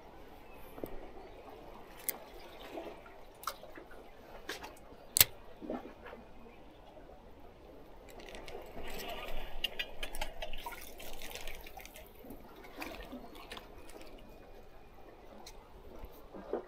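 Seawater sloshing and gurgling in the gaps between concrete tetrapods. Over it come a few sharp clicks, the loudest about five seconds in, and a louder rustling stretch from about nine to twelve seconds in.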